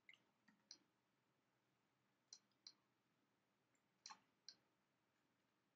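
A few faint computer mouse clicks, scattered single and paired, with near silence between them.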